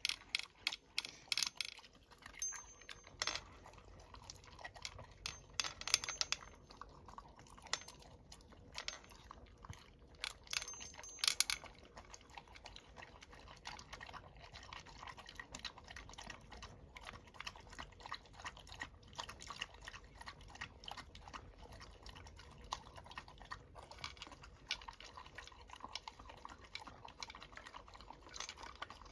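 A dog eating, crunching and chewing its food in quick runs of clicks, busiest and loudest in the first twelve seconds or so, then fainter and sparser.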